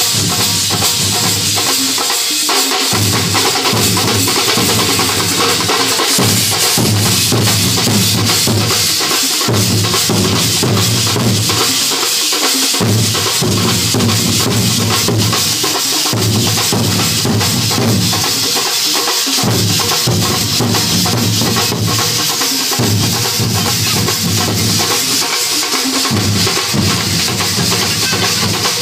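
Loud music driven by drums, with a steady beat.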